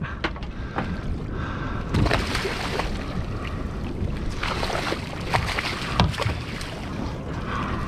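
A hooked redfish thrashing and splashing at the surface beside a boat, the splashing coming in two bursts over steady wind noise on the microphone, with a couple of sharp knocks.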